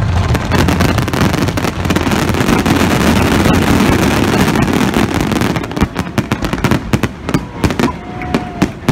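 Fireworks finale: a dense, continuous barrage of shell bursts and crackle, which breaks about six seconds in into separate sharp pops and crackles that thin out.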